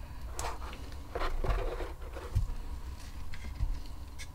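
A handful of short scrapes and rubs from gloved hands handling an EVA foam arm piece, each stroke brief and separate, with a few soft low thuds as the foam is moved on the work mat.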